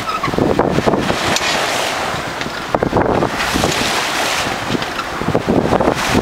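Wind buffeting the microphone in uneven gusts over the rush and splash of water along the bow of a sailing yacht under way.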